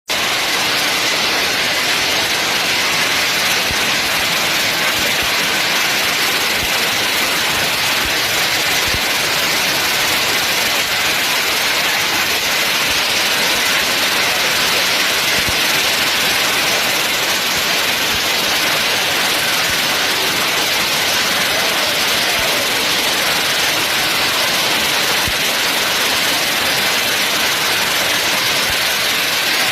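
Hailstorm with heavy wind-driven rain: a dense, steady hiss with no let-up and a few faint knocks.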